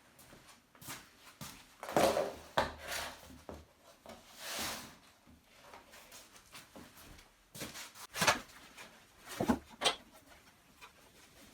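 Several knocks and clunks of hard objects being handled, with a short rushing, splash-like noise about halfway through.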